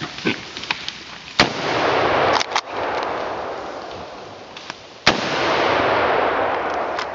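Two gunshots about three and a half seconds apart, fired at running wild boar, each followed by a long rolling echo through the woods. Both shots killed a boar.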